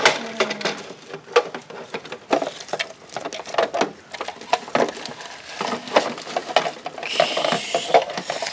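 Hard plastic toy parts clicking and knocking as a toy garbage can is handled on the back of a Bruder toy garbage truck, with shredded paper rustling, loudest near the end.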